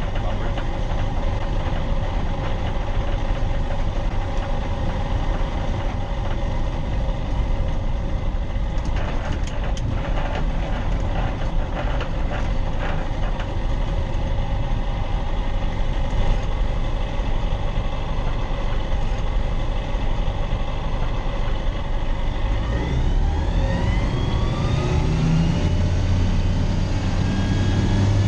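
Aeroprakt Foxbat light aircraft's Rotax 912 flat-four engine and propeller running steadily at low taxi power, with a few clicks about a third of the way in. Near the end the engine speeds up, its pitch rising.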